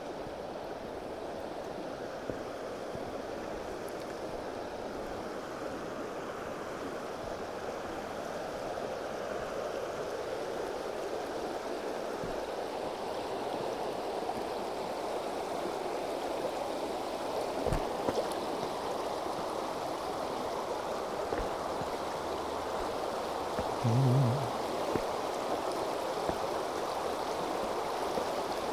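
Shallow river water rushing over stones and around stepping stones, a steady rush that grows a little louder. A brief low hum stands out about three-quarters of the way through.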